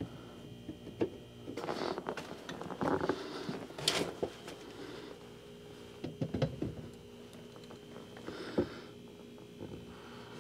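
Light handling noises: scattered knocks and clinks with some rustling, as a punched steel angle bracket on the wall is handled and fitted. A few sharper knocks stand out among them.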